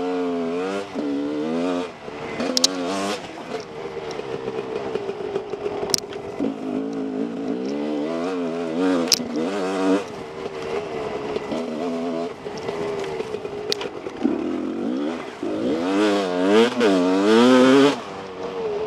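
Husqvarna WR 300 two-stroke single-cylinder dirt bike engine revving up and down again and again under throttle as it rides a rough trail, loudest and most rapidly varying near the end. A few sharp clicks cut in along the way.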